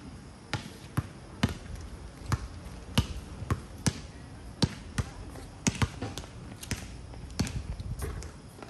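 Basketballs bouncing on a hard outdoor court, with sharp, irregularly spaced bounces about one or two a second.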